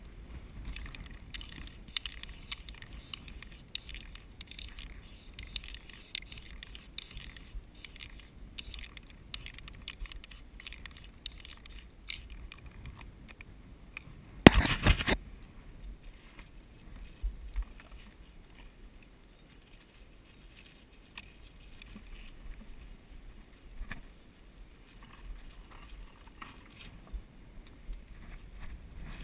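Climbing hardware clinking and scraping against a dead tree trunk as a climber shifts position, with one loud knock about halfway through.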